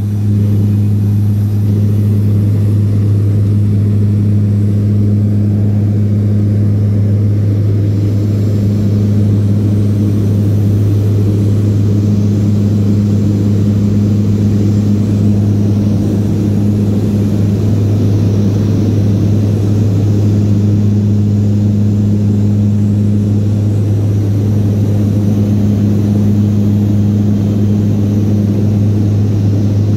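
Steady drone of a turboprop aircraft's engines and propellers heard from inside its cabin in level formation flight. It is a loud low hum with a fainter higher tone above it, and it does not change.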